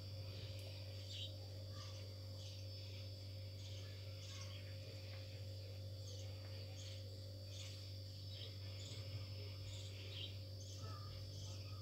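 Faint insect chirping, a short high chirp roughly every half second, over a low steady hum.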